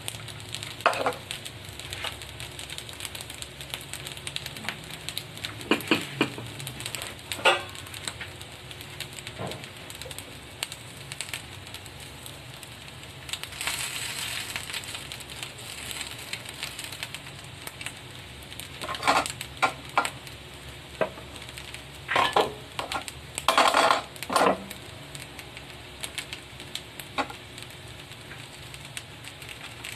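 Fried rice and fried chicken sizzling in a hot cast-iron sizzling plate over a gas burner, a steady hiss that swells for a moment near the middle. Sharp clinks and knocks of utensils against the plate and a bowl come at intervals, bunched about a quarter of the way in and again about two-thirds through.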